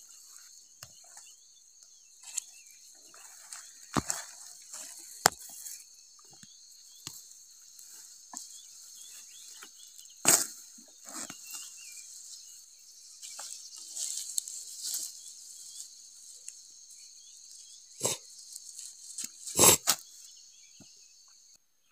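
Weeds being pulled up by hand: scattered rustling and crackling of leaves and stems, with a few sharper snaps and knocks. Insects are buzzing steadily throughout.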